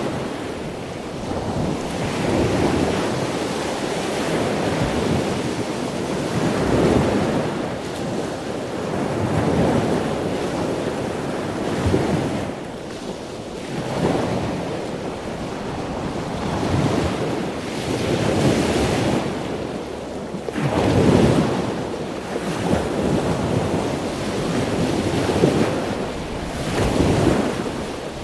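Small waves breaking and washing up a sand-and-rock shore, the surf swelling every two to three seconds, with wind buffeting the microphone.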